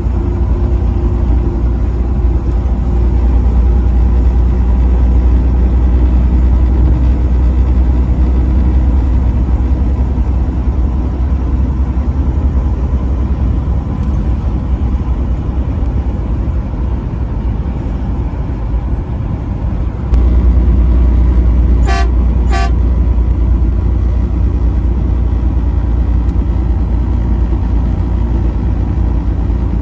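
Steady low rumble of a vehicle driving on the highway, growing louder about twenty seconds in. About two-thirds of the way through, a truck horn gives two short blasts about half a second apart.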